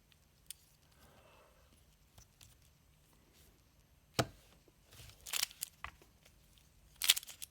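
QiYi MS magnetic Pyraminx being turned by hand, with a few sharp plastic clacks about four seconds in, a second and a half later and near the end, and quiet in between.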